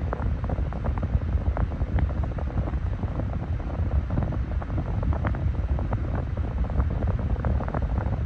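A Massey 9-inch high-velocity desk fan running steadily. Its airflow buffets the microphone, giving a low rumble with scattered light crackles.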